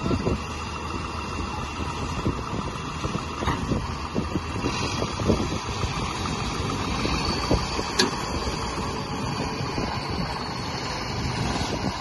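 The diesel engines of a John Deere 5410 tractor and a Preet combine harvester running together under load as the tractor tows the combine, stuck in mud, on a chain. A steady engine rumble with uneven knocks and rattles.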